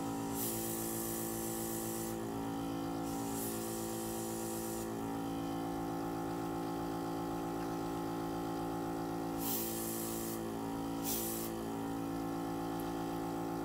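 Airbrush blowing alcohol ink across Yupo paper in four hissing bursts of air, the first two about two seconds long and the last two shorter, over a steady hum from its compressor that shifts slightly in pitch as the air flows.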